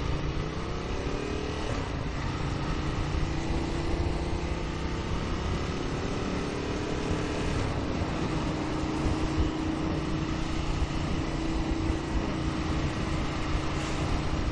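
2016 Ducati Monster 1200 R's 1198 cc L-twin engine, with a Termignoni exhaust, accelerating away. Its pitch climbs through the gears, then holds steady from about halfway as the bike cruises. Wind rushes over the microphone throughout.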